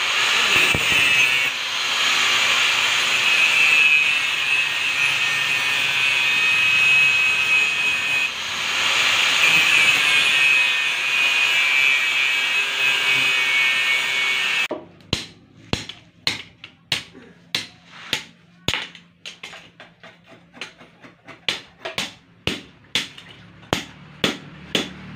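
Angle grinder cutting through a steel motorcycle brake disc: a loud, steady high whine with a grinding hiss. About fifteen seconds in it cuts off abruptly, replaced by a hammer forging red-hot steel on an anvil, with sharp blows about two to three a second.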